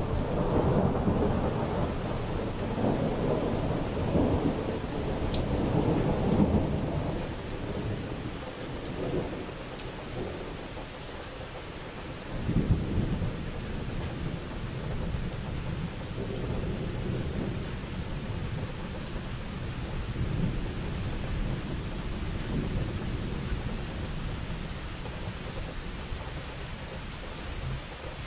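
Thunder rolling overhead over steady rain: a long loud rumble at the start that dies away over several seconds, a second sharper peal about halfway through, then fainter rumbles trailing off.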